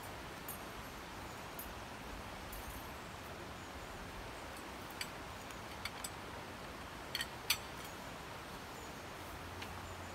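A few sharp clicks and clacks of tent poles being handled and fitted together, the loudest a quick pair about seven and a half seconds in, over a steady outdoor background hiss.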